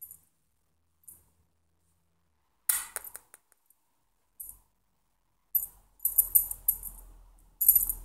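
Light, high clinking and rattling from a small object shaken in short bursts, sparse at first and busiest from about six seconds in.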